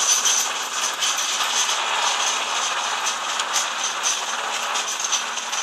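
Tractor-drawn muck spreader at work, its beaters flinging dung: a steady mechanical clatter with fine rattling and a constant high whine.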